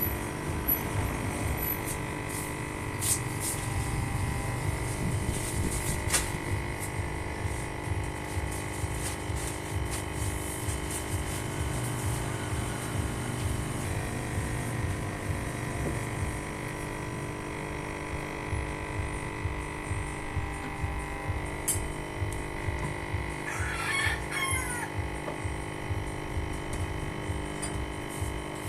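Epson printer/scanner mechanism running with a steady, rapid low rattle and whine. A rooster crows once, briefly, about four-fifths of the way through.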